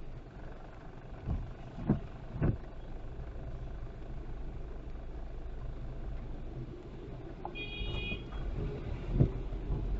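Car driving on a wet road: steady low road and tyre rumble, with three short thumps about a second in and another near the end. A brief high beep sounds about three-quarters of the way through.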